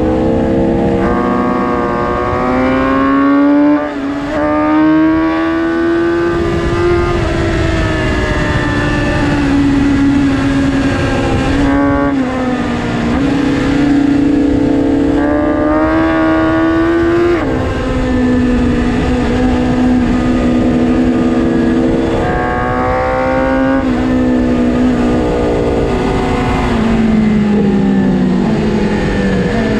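2022 BMW S1000RR's 999 cc inline-four engine at track speed, its pitch climbing with throttle and dropping at each gear change, over steady wind rush on the microphone.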